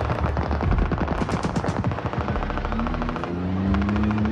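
Rapid automatic machine-gun fire, in long dense bursts. From about halfway through, a droning engine-like tone rises slightly in pitch beneath the shots.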